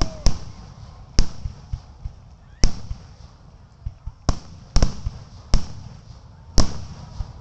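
Aerial fireworks shells bursting: about seven sharp, echoing bangs at uneven intervals of roughly a second.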